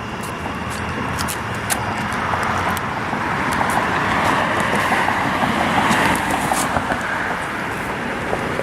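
Road traffic going by: tyre and engine noise that swells in the middle and eases off again, with no horn sounding.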